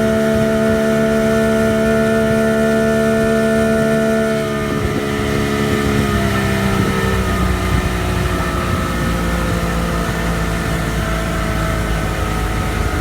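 1989 Bayliner's engine running steadily at raised speed, then throttled back about four seconds in: the pitch drops and it settles into a lower, rougher running with more low rumble.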